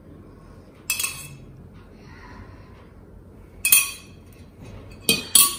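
Metal spoon clinking against the bowls while curd is scooped from a steel bowl into a glass bowl: one clink about a second in, another near the middle and two quick ones near the end.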